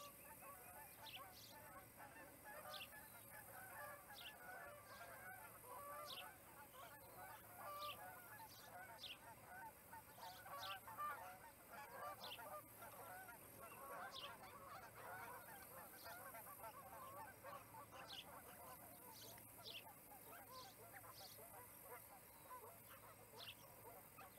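Osprey calling at the nest: a faint run of short, high, falling whistled chirps, about one a second, over softer continuous chirping.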